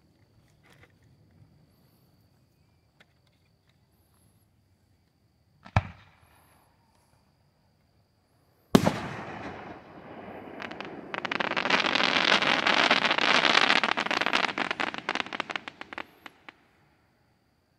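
Aerial fireworks: a shell bursts with a sharp bang about six seconds in, then a louder bang near the middle trails off into a rumble. Dense crackling follows, building and lasting about five seconds before it cuts off.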